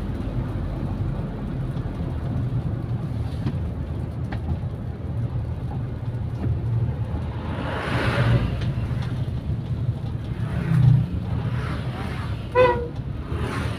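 Carburetted car engine and road noise at a steady cruise on an even throttle, at around 2,250 rpm. Another vehicle's noise swells past about eight seconds in, and there is a short pitched toot near the end.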